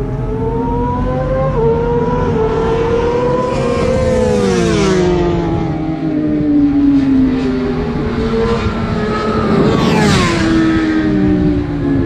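Track-day cars running at high revs: one passes close by about four seconds in and another about ten seconds in, each engine note dropping in pitch as it goes by, with other cars' engines audible further off around the circuit.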